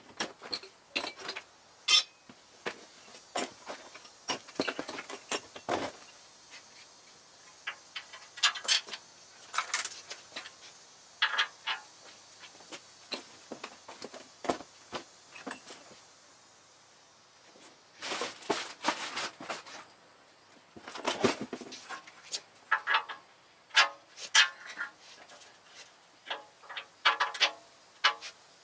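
Hand tools and small metal parts clinking and clattering in scattered sharp clicks, with short quiet gaps between.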